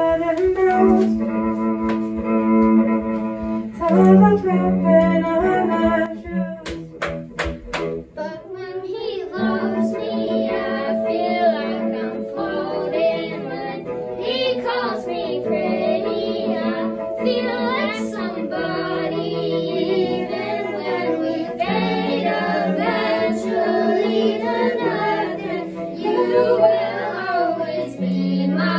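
A young band playing a song live: cello and keyboard hold sustained chords, a short break with a few sharp clicks comes about seven seconds in, and young singers' voices come in over the chords about nine seconds in.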